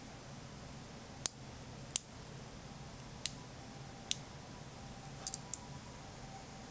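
Small neodymium magnet balls clicking sharply as they snap onto one another while being pulled off and placed by hand. There are seven clicks at irregular intervals, the last three in quick succession about five seconds in.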